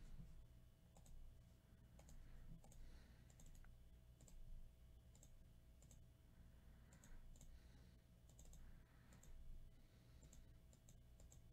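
Faint, scattered clicks of a computer mouse and keyboard, some in quick pairs, over near-silent room tone.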